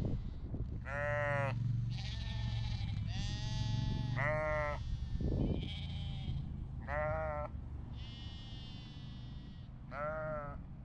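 Sheep and lambs bleating over and over: four loud, wavering bleats about three seconds apart, with higher, fainter bleats in between. A low rumble sits underneath in the first few seconds.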